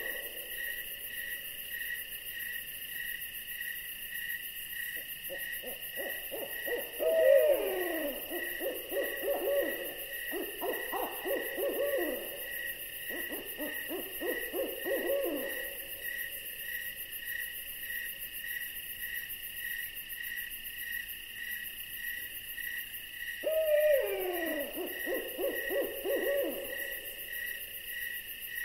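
An owl calling: a falling, whinnying call about 7 seconds in and again near 24 seconds, with long quavering trills between. Insects chirp steadily behind it.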